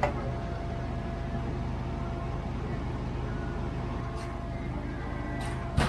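A steady low engine hum runs throughout. There is a sharp knock at the start and two more knocks just before the end.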